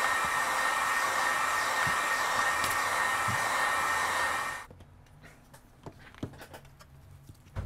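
Handheld heat gun blowing hot air onto a phone's back glass to soften the glue before prying. It makes a steady rush of air with a thin fan whine and switches off suddenly about four and a half seconds in. A few faint taps and a light knock follow as the phone is handled.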